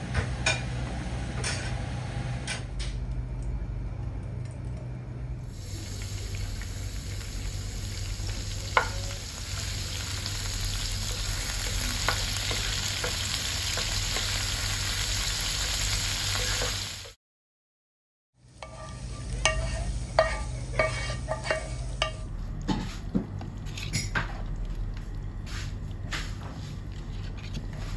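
A wooden spoon stirs kubbeh in a pot of yogurt with a few light knocks, then chopped mint fries in oil in a frying pan with a steady sizzle for about ten seconds. After a brief gap, stirring resumes with a quick run of clicks and knocks of the spoon against the cookware.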